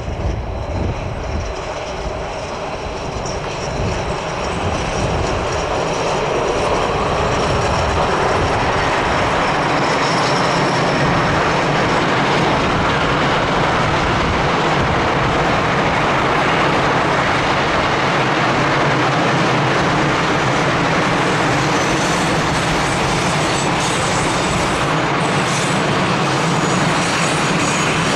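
Long freight train of container, covered and empty stake wagons rolling past behind an electric locomotive, with the wheels clattering over the rails. It grows louder over the first several seconds as the wagons come abreast, then runs steadily.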